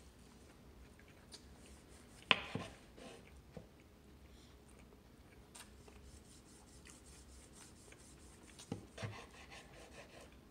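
A baby eating finger food with her hands at her mouth: faint chewing and handling noises over quiet room tone, with a few short clicks, the sharpest about two seconds in and a pair more near nine seconds.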